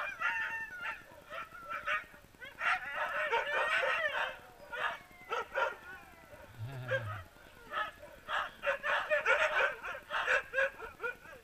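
A team of harnessed sled dogs barking and yelping, many dogs at once in overlapping short calls, excited as they wait to run.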